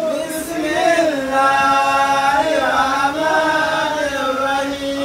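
A man's voice chanting an Islamic prayer in a melodic recitation, holding long notes that slide slowly up and down.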